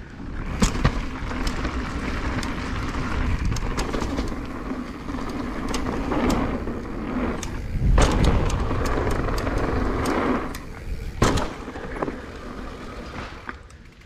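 2022 Nukeproof Dissent Comp downhill mountain bike riding down a dirt trail: tyre noise on dirt and rock with frequent sharp clicks and rattles from the bike. It gets quieter after about eleven seconds as the bike slows down.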